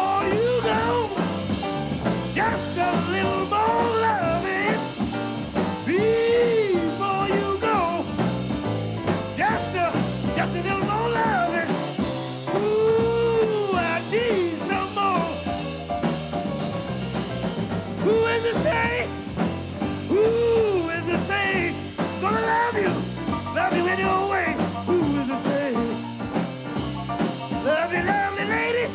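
A man singing a slow, sliding vocal line into a microphone, accompanied by a jazz quartet's piano, double bass and drums with a steady cymbal pattern.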